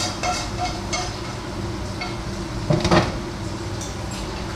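A frying pan and fork clinking and scraping as cooked fish is served into a bowl, with a louder clatter about three seconds in, over a steady low hum.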